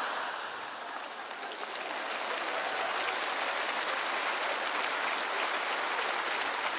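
A large theatre audience laughing and applauding. The clapping builds over the first couple of seconds into steady applause.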